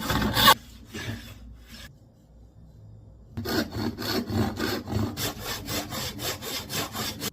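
Wood being worked by hand with quick back-and-forth scraping strokes: a short burst at the start, a pause of about two seconds, then a steady run at about three strokes a second that stops abruptly.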